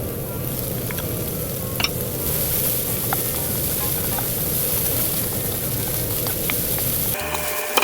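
Food sizzling in a hot frying pan, with a few light clicks of a utensil against the pan.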